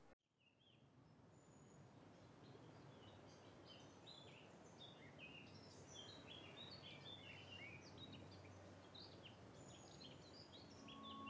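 Faint birdsong: many small birds chirping and twittering over a soft, steady outdoor hiss, fading in after a moment of silence at the start.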